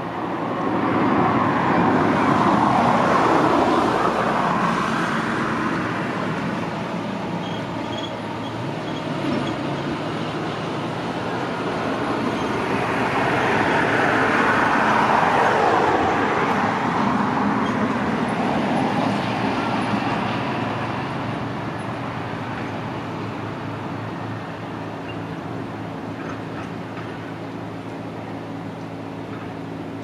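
Road traffic: vehicles passing close by, with tyre and engine noise swelling and fading twice, first about a second in and again around twelve to seventeen seconds in.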